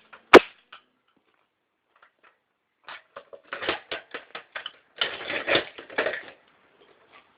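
A rock hits a microwave oven door once with a sharp crack. About three seconds later come a few seconds of rapid crunching and clattering as the door's glass and frame break up.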